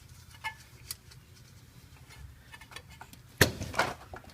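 A few light clicks, then a loud, sharp clatter about three and a half seconds in with a smaller knock just after, from handling parts and tools while tightening a new oil filter.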